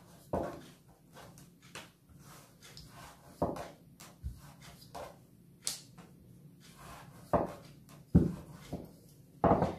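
Wooden rolling pin rolling out small rounds of dough on a floured countertop, with irregular knocks of the wooden pin against the counter.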